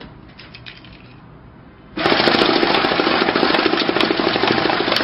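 Electric banknote counting machine running a stack of notes through at speed: a loud, rapid rattle that starts suddenly about two seconds in and lasts about three seconds. Before it, faint light clicks as the notes are set in the hopper.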